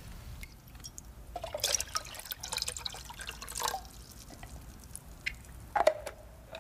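Water dripping and trickling in small, irregular drops, with short plinks.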